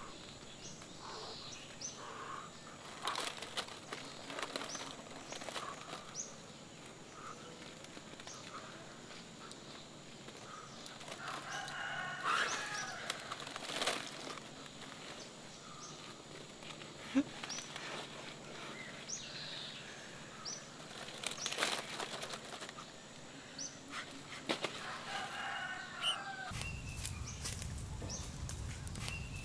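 Trapped sparrows fluttering and flapping their wings as they are handled into a woven bamboo basket, with scattered sharp taps, rustles and a few short bird calls.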